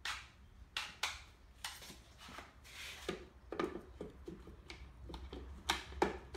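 Clamps being fitted and tightened on a small plywood form: an irregular run of sharp clicks and clacks from the clamp mechanism against the wood, with two of the loudest near the end.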